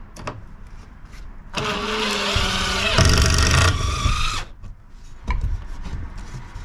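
Power drill driving a self-drilling deck screw through a wooden stud into the van's steel framing: a motor whine starts about one and a half seconds in, runs about three seconds, is loudest in the middle and stops. Light clicks of handling come before and after.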